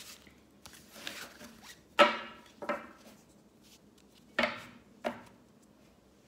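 Oracle cards being picked up off a cloth-covered table, with soft rubbing of card and four sharp taps: about two seconds in, again shortly after, and twice more a little past four seconds.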